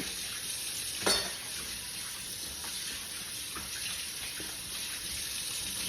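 Kitchen sink tap running steadily, left on until the water gets hot for dishwater. A single sharp clack about a second in.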